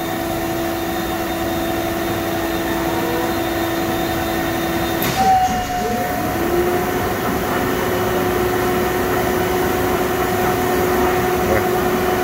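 CNC milling machine running through a broaching cycle, a steady pitched machine hum. About five seconds in there is a brief clatter and the hum drops out, then returns a little higher in pitch.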